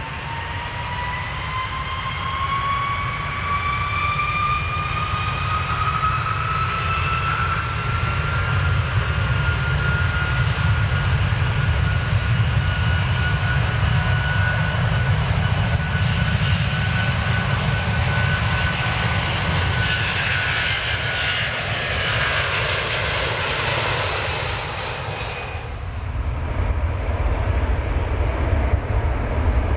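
Airplane taking off: a loud, steady engine roar with a whine that rises in pitch over the first several seconds and then holds. Near the end a high hiss swells, then drops away suddenly, leaving a low rumble.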